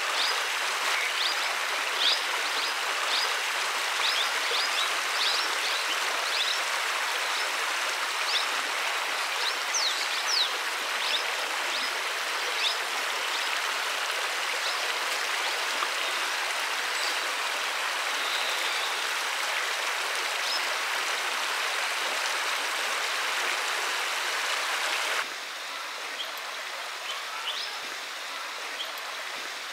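Shallow river water running over rocks: a steady rushing and trickling, with short high chirps over it in the first half. It drops to a quieter level about 25 seconds in.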